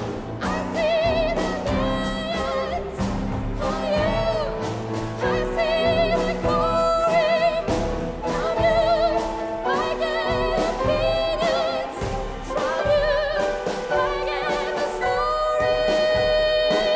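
Contemporary classical chamber music: a soprano sings held notes with wide vibrato over an ensemble of sustained low notes, punctuated by frequent sharp attacks.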